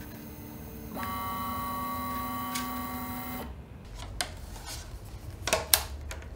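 Prusa 3D printer's stepper motors whining steadily in several pitches as the axes move at the end of a print. After a cut, a few sharp clicks and taps as the flexible steel print sheet is bent and lifted off the magnetic bed.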